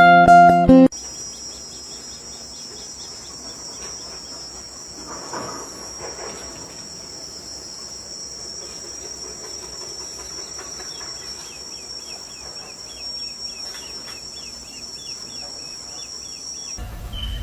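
Rainforest insects droning steadily at a high pitch, with faint, scattered bird calls and a run of quick repeated chirps in the latter part. Acoustic guitar music cuts off about a second in.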